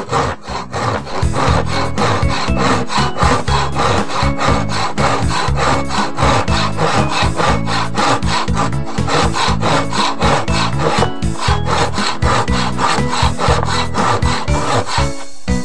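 Freshly filed hand saw cutting across a wooden beam in quick, regular back-and-forth strokes.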